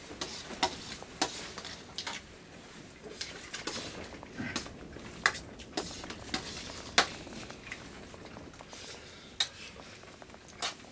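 Utensils clinking and scraping against dishes in scattered, irregular sharp clicks over a faint low background.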